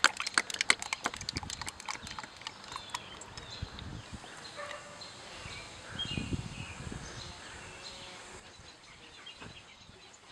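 Motor oil glugging out of a plastic jug into a funnel in the engine's oil filler: a quick run of gurgling pops for the first couple of seconds, thinning into a softer, quieter pour.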